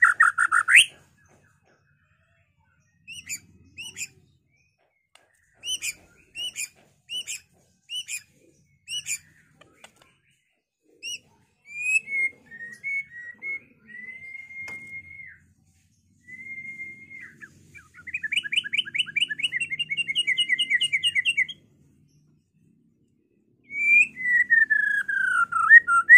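White-rumped shama singing in separate phrases: a rising whistle, a run of short sharp notes, a few held whistles, a fast trill, and near the end a long falling whistle.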